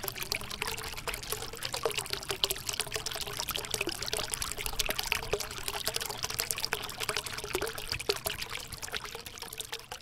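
Water from a miniature homemade waterfall fountain trickling steadily, thin streams and many small drips falling and splashing.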